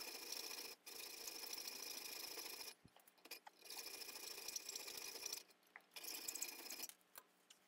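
Hacksaw cutting through a small bronze block held in a bench vise: a rasping run of quick strokes in bouts of one to two seconds with short pauses between.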